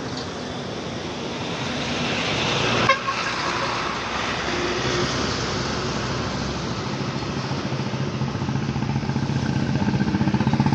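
Diesel tractor engine running, its rhythmic chug growing louder over the last few seconds, with a sharp knock about three seconds in.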